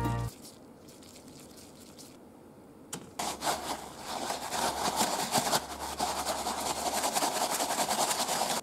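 Pumpkin croquette balls and toasted panko breadcrumbs shaken around in a plastic food container to coat them: a dense, gritty rustling full of small scrapes and ticks, starting about three seconds in after a quiet stretch and a single click.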